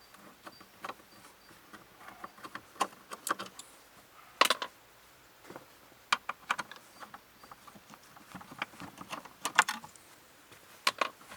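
Screws being taken out of a car glovebox hinge with a Phillips screwdriver: irregular small clicks, ticks and metallic clinks of the screwdriver and screws.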